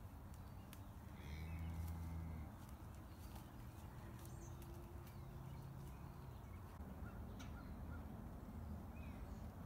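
Faint outdoor ambience with a few crow caws, a low hum that swells about a second in and again around four seconds, and scattered soft clicks.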